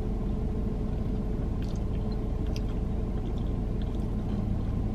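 Steady low hum of a car heard from inside its cabin, with a few faint wet mouth clicks of someone chewing food.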